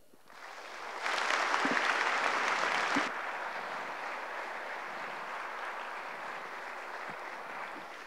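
Audience applauding at the close of a talk. The clapping builds quickly, is loudest for about two seconds starting a second in, then carries on more softly.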